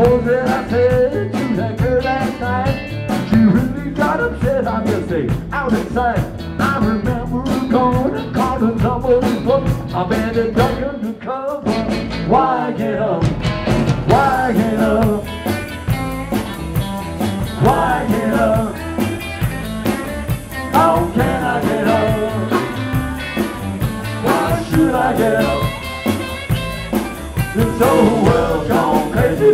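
Live rock-and-roll band playing a song: electric guitar, drum kit and sung vocals. A little before the middle the bass and cymbals drop out for a couple of seconds, then the full band comes back in with steady cymbals.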